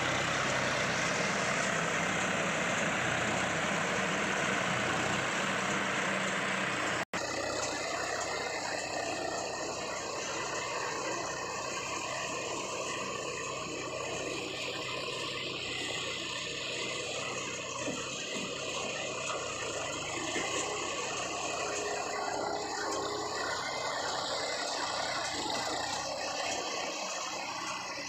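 Tractor engine running steadily together with the mechanical clatter of a tractor-drawn Shaktiman SRB 60+ round baler at work. The sound breaks off for an instant about seven seconds in, then carries on with less low rumble.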